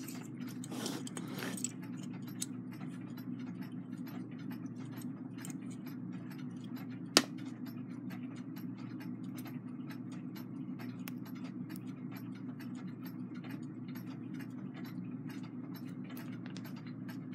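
A clock ticking steadily, over a low steady hum. About seven seconds in comes one sharp click of small brass clock-movement parts being handled.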